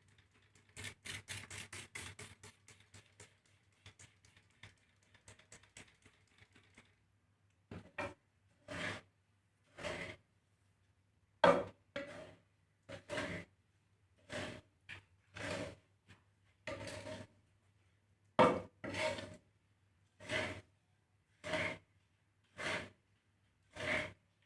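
A spatula scraping and stirring a dry seed mix of millet and black glutinous rice in a pan as it roasts: quick, dense scraping for the first several seconds, then regular strokes a little more than one a second.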